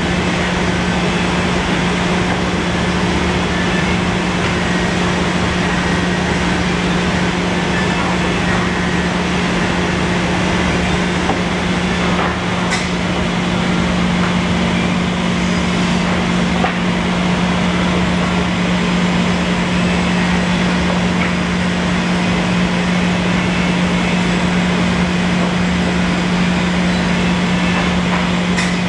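Steady drone of workshop machinery running, with a low hum under even noise. A light knock comes about halfway through and another near the end.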